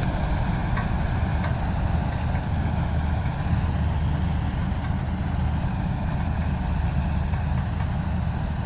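Heavy diesel farm-machine engine running steadily at an even speed, its sound deep and low.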